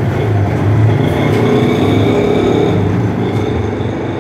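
Steady low background rumble with a faint, even high-pitched hum over it, from traffic or a running machine rather than from the sewing machine, which is still.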